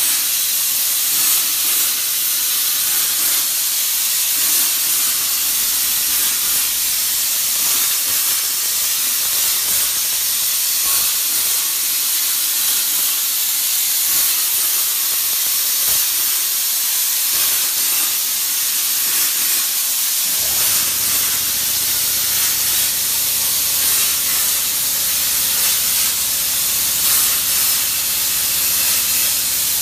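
200A CNC plasma cutter running, its torch giving a loud, steady hiss. A low hum joins about two-thirds of the way through.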